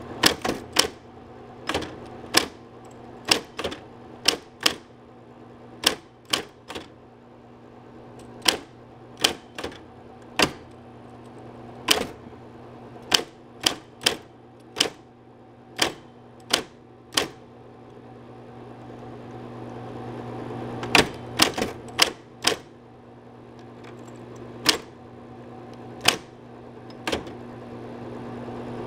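Smith-Corona Coronet Super 12 electric typewriter typing a short sentence slowly: single sharp key strikes at an uneven pace, with a pause of a few seconds midway, over the steady hum of its running motor.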